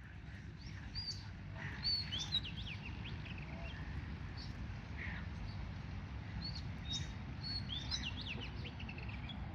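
Several small birds chirping and twittering, with quick sweeping notes in two busy spells, about a second in and again from around six and a half seconds, over a steady low rumble.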